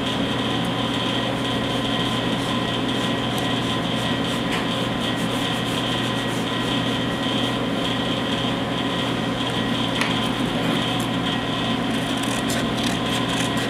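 Steady machine hum running throughout, with a pencil scratching along a paper pattern laid on a metal fuel tank; near the end, tin snips make a few quick cuts through the paper.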